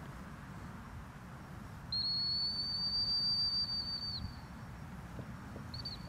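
Dog training whistle: one long, steady, high blast lasting a little over two seconds, then a short pip at the same pitch near the end.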